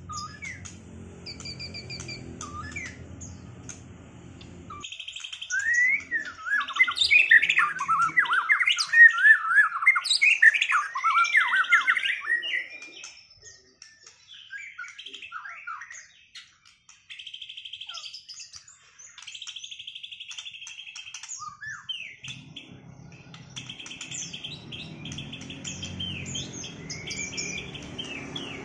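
White-rumped shamas (murai batu) singing against each other: loud, varied whistled phrases with rising and falling glides, loudest from about five to thirteen seconds in, mixed with buzzy rattling trills. A low steady hum runs under the start and returns near the end.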